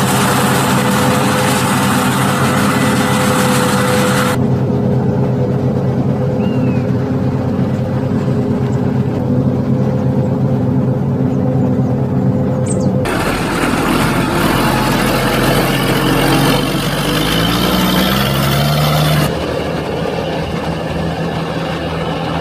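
New Holland FR500 forage harvester running steadily as it chops corn. About thirteen seconds in, this gives way to a tractor pulling a loaded forage wagon, its engine rising in pitch as it speeds up and then easing off.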